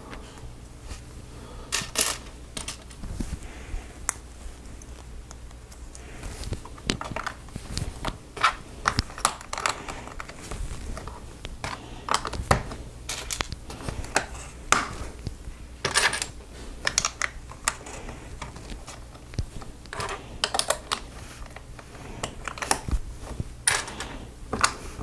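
Plastic Lego bricks and plates clicking and clattering as pieces are picked out and snapped together: irregular sharp clicks, a few a second, with some louder snaps.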